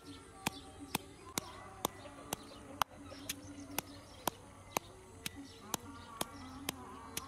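Pestle pounding sliced lemongrass and vegetables in a stone mortar: a steady knock about twice a second.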